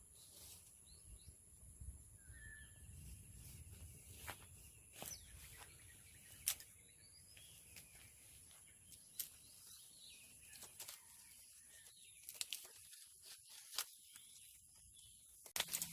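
Faint outdoor ambience: scattered light clicks and ticks over a steady high-pitched whine, with one short chirp about two and a half seconds in.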